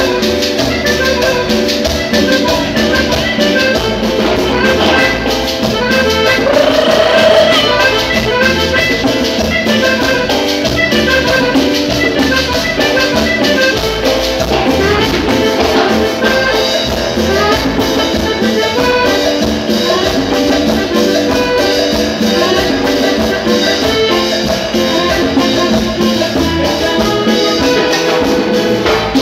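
Live Latin band music played loud: accordion, drum kit and timbales, electric bass and keyboard over a steady dance beat.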